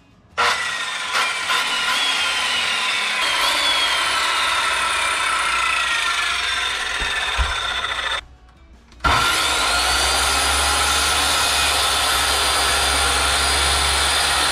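Corded circular saw running and cutting across a 2x4, its motor whine falling in pitch as the blade works through the wood. It stops briefly about eight seconds in, then starts again, the whine rising as the blade spins up and then holding steady.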